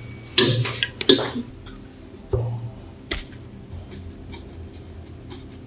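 Clicks and knocks of a lamp socket and its small metal bracket being handled and fitted inside a metal lamp shade. There is a cluster of knocks in the first second and a half, another knock about two and a half seconds in, then a few lighter ticks.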